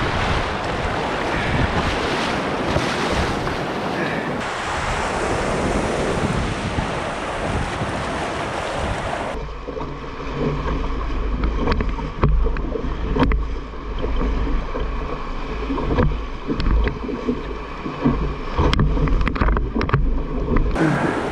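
Whitewater rapid: rushing, churning water and waves breaking around a loaded canoe, with wind buffeting the microphone. About nine seconds in the sound turns boomy and close, with a low rumble and many sharp splashes of paddle strokes and waves hitting the boat.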